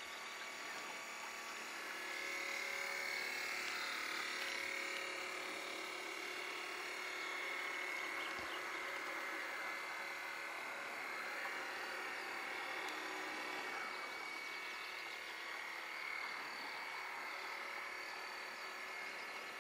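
Small electric motor of a radio-controlled model tug boat whining steadily, growing louder about two seconds in and wavering a little in pitch as it runs.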